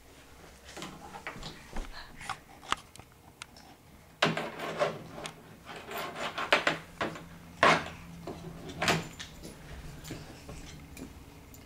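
Irregular knocks, clicks and rattles of a hollow plastic Little Tikes Cozy Coupe ride-on toy car being handled and bumped by a baby, louder and more frequent in the middle.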